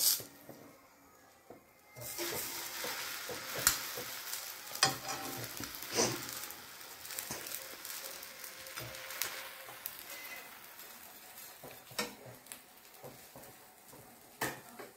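Bread sandwich frying in butter and oil on a flat griddle pan, sizzling from about two seconds in and fading toward the end. Several sharp clicks of a metal spatula and tongs on the pan.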